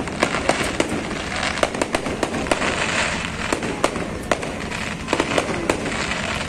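Aerial fireworks bursting overhead: an irregular run of sharp bangs over a continuous crackle, the crackle densest about halfway through.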